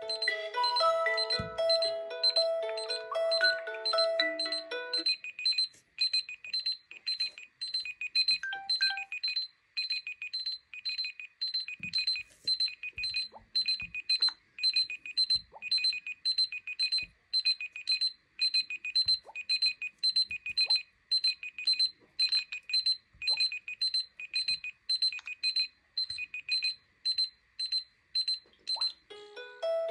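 Huawei Y6 2018 smartphone alarm beeping, a high electronic beep pattern repeating about once a second, which stops near the end. For the first five seconds a Lenovo A6010's melodic alarm tune plays over it, then cuts off.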